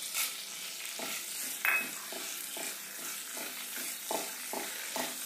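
Whole spices sizzling in hot melted butter in a kadhai, stirred with a wooden spatula that scrapes the pan in short strokes about twice a second. A brief clink rings out just under two seconds in.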